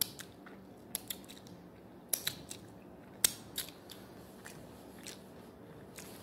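Close-up chewing of chicken wings: a few sharp, irregular crunches and crackles, the loudest about three seconds in.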